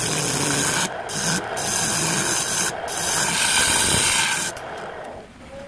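Lathe gouge cutting the inside of a spinning jackfruit-wood bowl: a steady scraping hiss, broken three times by brief lifts of the tool. Near the end the cutting stops and the sound falls much quieter.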